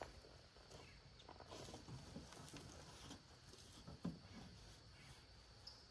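Near silence: faint wind rumble on the microphone and a faint, steady, high insect drone, with a few soft knocks and rustles as things are handled on a plastic folding table. The clearest knock comes about four seconds in.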